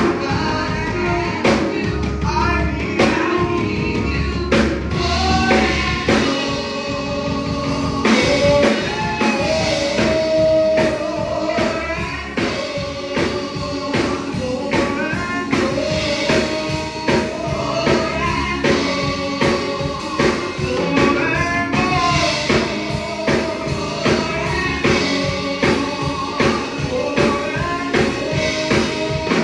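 Gospel praise team of several singers singing a song into microphones over live band accompaniment with a steady drum beat.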